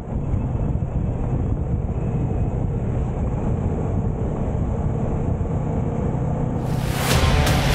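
Motorcycle riding at speed: the engine's steady hum under wind and road noise on an on-bike camera. About a second before the end, music with sharp beats comes in.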